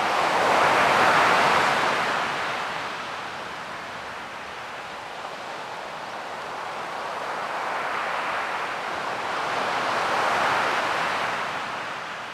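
Ocean surf: waves washing in as a rushing noise that swells twice, once near the start and again, more slowly, in the second half.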